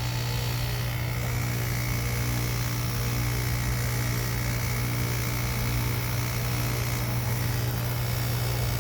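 Outdoor unit of a Tempstar 3-ton heat pump running in defrost mode: a steady low hum with fainter steady tones above it and a thin high whine.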